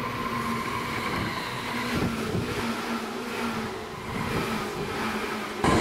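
Seibu 10000 series 'New Red Arrow' limited express train passing close by: wheels running on the rails with a steady hum, and a few clacks over rail joints about two seconds in. It gets suddenly louder near the end.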